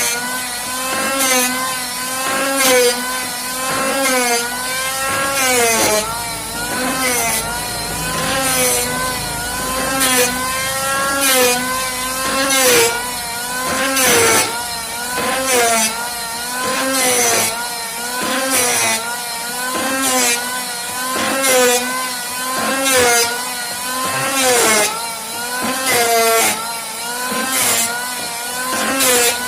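Electric angle grinder running against wood, its whine dipping under load and recovering over and over, with a sharp scrape or knock about every second and a half.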